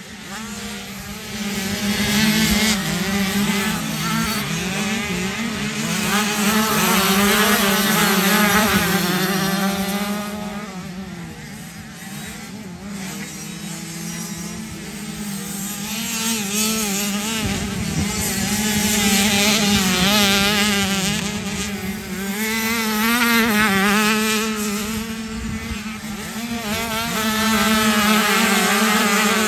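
Motocross bike engines revving up and down during a race, pitch rising and falling with each throttle change; the loudness swells and drops every few seconds.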